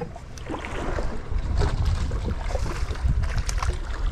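Wind buffeting the microphone over water sloshing against a boat's hull, with short splashes from a hooked roosterfish thrashing at the surface beside the boat.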